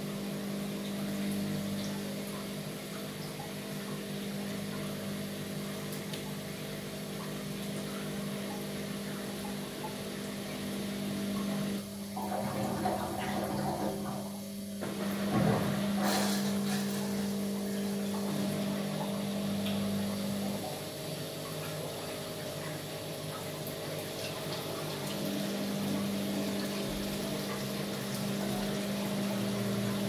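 Amica WA 14680 W front-loading washing machine in its wash cycle: the drum motor hums steadily as the drum turns the wet laundry, with water sloshing. About halfway the hum gives way to a louder rushing stretch of a couple of seconds that ends in a knock, then the hum returns.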